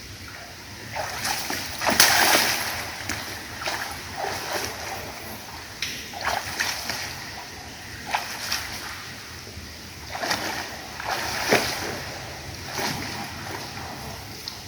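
Feet wading through shallow water and sludgy mud, splashing unevenly every second or two inside an echoing tunnel.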